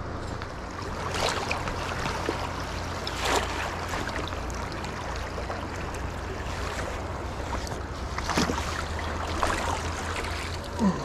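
River current rushing steadily around the wading angler, with a few short splashes from a hooked sockeye salmon thrashing at the surface as it is brought to the net.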